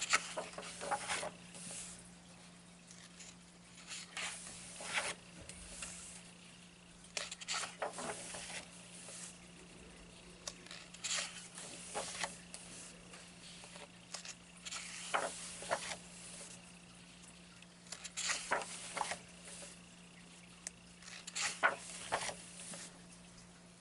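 Paper pages of a colouring book being turned by hand, a rustling, sliding swish of paper in clusters about every three to four seconds. A steady low electrical hum runs underneath.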